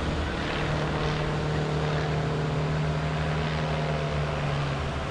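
Pitts aerobatic biplane's piston engine and propeller droning in flight, holding a steady pitch that drops slightly near the end.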